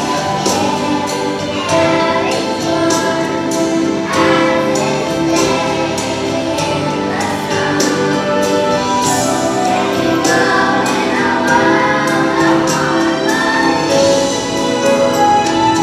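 A group of children singing a song together as a chorus, with instrumental accompaniment and a steady beat.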